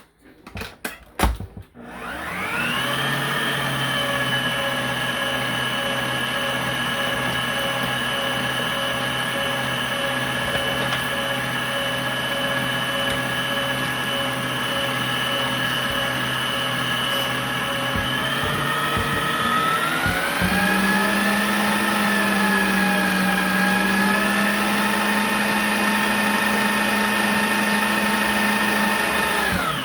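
Electric mixer with beaters whipping cream cheese filling: the motor starts about two seconds in, hums steadily, then shifts to a higher pitch and runs a little louder about twenty seconds in before stopping just before the end.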